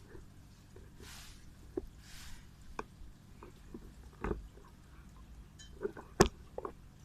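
Scattered knocks and clicks from work on tree branches, the loudest about six seconds in, with short hissing rustles in between.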